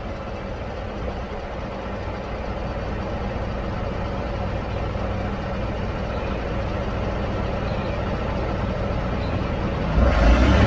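2016 Ford F-150 pickup driving, a steady low drone and hum over road noise that slowly grows louder; the owner takes the noise for a dry bearing. Near the end a louder rush of noise comes in suddenly.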